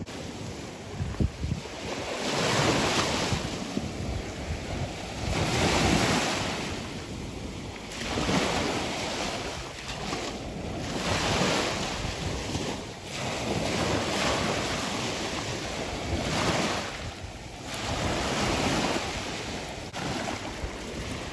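Small waves breaking and washing up on a sandy shore, swelling and falling every few seconds, with wind buffeting the microphone.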